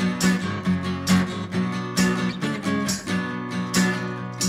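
Acoustic guitar music: chords strummed in a steady rhythm over sustained notes.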